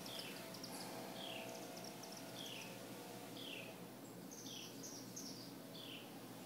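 Birds singing: one repeats a short downward-slurred note about once a second, while others add quick higher chirps. A faint steady hum runs underneath.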